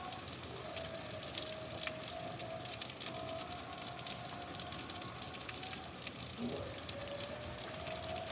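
Steady rain: an even hiss with many scattered drop ticks. A thin wavering tone runs through it and dips briefly about six and a half seconds in.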